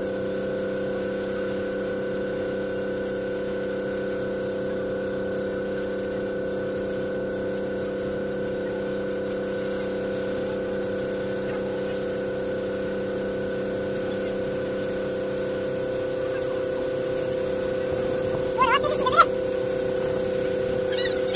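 A motorboat's engine running steadily, an even hum. Near the end a short, louder sound with a sliding pitch breaks in briefly.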